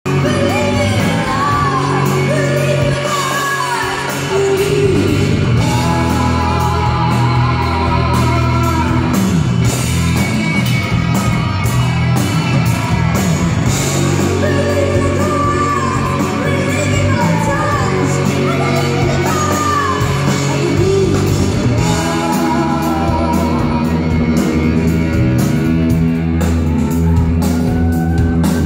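Live rock band playing through the PA in a large hall: electric guitars, bass and drums under a sung vocal line, loud and steady throughout, with the hall's echo.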